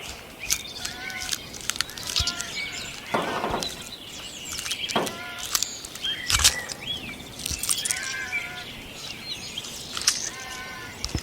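Squirrel and bird calls: short calls repeated every second or two, among quick high chirps and sharp clicks.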